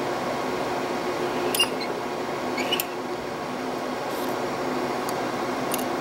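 Micro resistance weld head clicking sharply twice, a little over a second apart, as it fires a weld of gold wire onto a crimp pin, over a steady fan-like hum.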